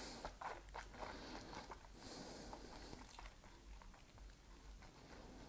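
Faint wet mouth noises, lip and tongue clicks, as a sip of whisky is worked around the mouth, with a soft breath out about two seconds in.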